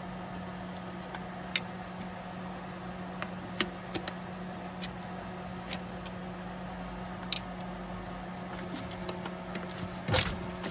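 Small scattered plastic clicks and taps as a screwdriver and hands work electrical connectors loose at a throttle body, over a steady low hum. A louder knock with rustling comes near the end.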